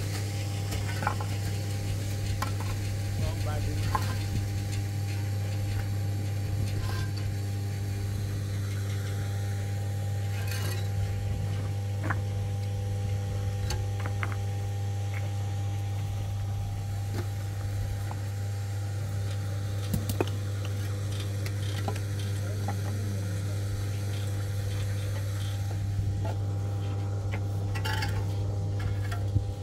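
A steady low mechanical hum, like a running engine, with scattered light clinks and knocks over it, like dishes or utensils being handled.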